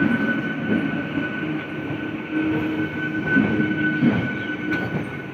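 Eastern Railway EMU local train running along the platform: steady rumble of the coaches with a constant high-pitched whine and a lower hum that comes and goes, and a few sharp wheel clicks over the rail joints near the end.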